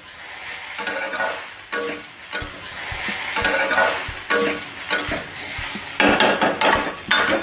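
Metal spatula scraping and clinking against a kadai while vegetables fry with a sizzle, in strokes about once a second, with louder metal clanks near the end.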